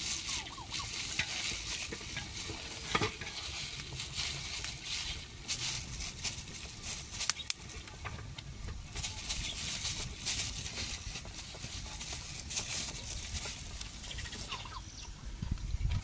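Maize flour shaken out of a plastic bag into a pot of water for ugali: the bag rustles and the flour hisses, with scattered sharp crackles from the wood fire under the pot. A turkey gobbles near the end.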